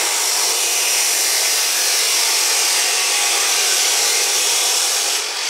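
Ridgid abrasive chop saw's cut-off disc grinding through square steel tubing, a loud, steady rushing noise. Just before the end the cut finishes and the sound starts to fall away.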